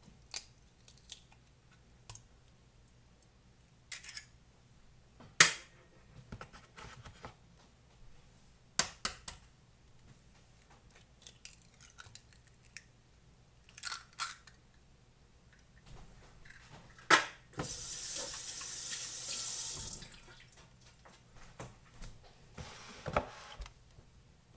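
Eggs being cracked one by one against a stainless steel bowl: a series of sharp taps and cracks as the shells break and are pulled apart, the loudest about five seconds in and again near the end. A steady hiss follows the late crack for about two seconds.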